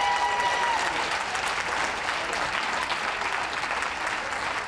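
Crowd applauding steadily, with a held cheer from a few voices that fades out about a second in.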